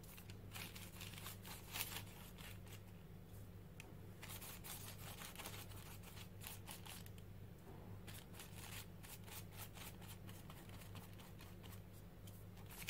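A paintbrush being swept quickly back and forth over a paper journal page, spreading blue paint in a run of faint scratchy strokes, with two short pauses.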